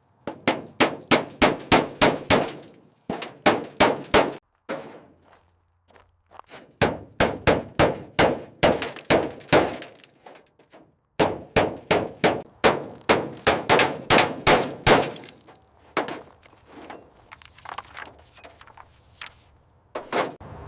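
Hammer blows on metal, struck in quick runs of about three to four ringing clangs a second with short pauses between runs.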